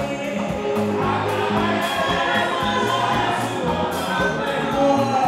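Upbeat gospel music played live by a band, with a bass line, steady drum-kit beat and group singing.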